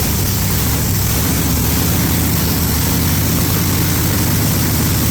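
Supercharged big-block Chevrolet V8 running steadily.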